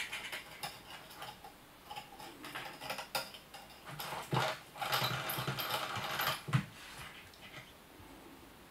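Motorised butterfly cat toy clicking and whirring through its gears, irregular at first, busier for about two seconds in the middle, then settling down, with light taps as a kitten paws at it.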